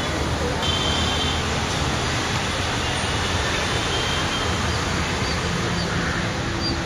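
Steady rushing background noise of road traffic, with a few faint high bird chirps in the second half.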